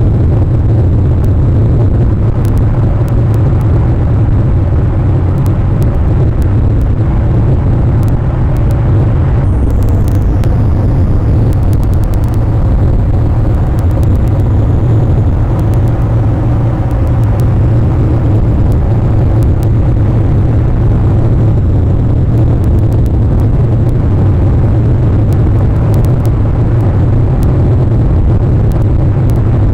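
Steady, loud low rumble picked up by an outdoor nest camera's microphone, with faint scattered clicks.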